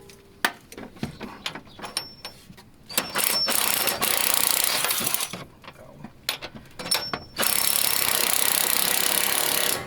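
Impact wrench hammering in two bursts of about two and a half seconds, working a stubborn long bolt loose, with scattered clicks of tool handling before and between.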